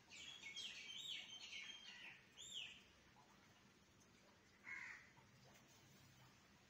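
Faint bird calls: a quick run of high, chirping, gliding notes over the first few seconds, then one shorter call near five seconds in.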